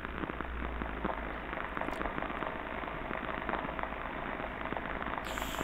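Ultrasound recording of a pump motor bearing made audible: a continuous dense crackle of many small impacts over a low hum. It is the sound of an unhappy bearing taking many shocks, which is linked to the motor being over-greased.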